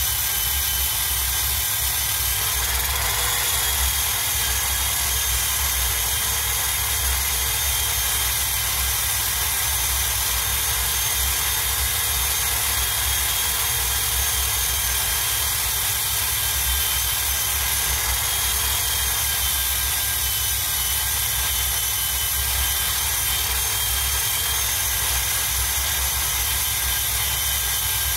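Electric power tool with a wire wheel running steadily: a continuous motor whine with several high tones over a hiss and a low hum, holding one speed throughout.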